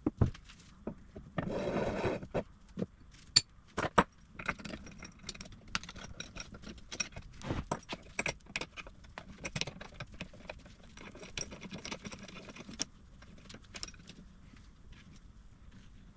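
Metal parts and hand tools clinking and knocking as a cast-iron bench vise is put back together. Sharp metallic taps are scattered throughout, with a short scraping rush about a second and a half in.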